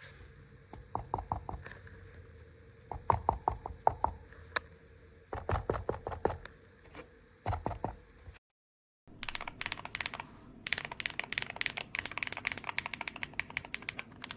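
Keystrokes on a MonsGeek FUN60 Pro SP keyboard with Akko Glare magnetic switches. Short bursts of typing give way, after a brief dropout just past the middle, to fast, continuous typing.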